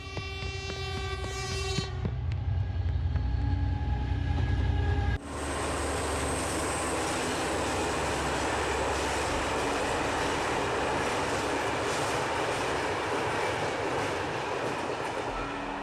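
A deep rumble under a sustained horn-like chord swells for about five seconds and cuts off abruptly. Steady rain follows, an even hiss that keeps on to the end.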